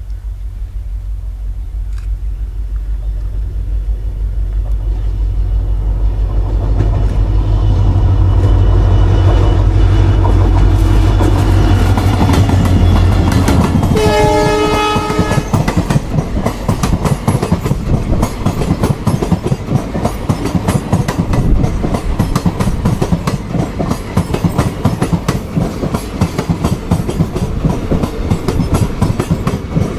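EMD WDP4-class diesel locomotive approaching, its two-stroke V16 engine drone growing louder, then one horn blast of about a second and a half near the middle as it passes. After that the express's coaches rush past with rapid wheel clatter over the rail joints.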